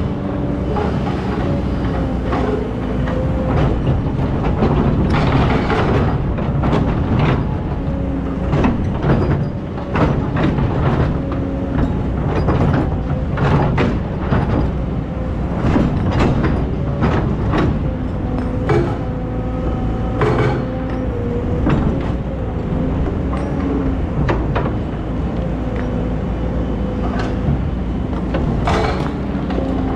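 Hydraulic excavator working: its diesel engine running steadily, with frequent clanks and knocks throughout.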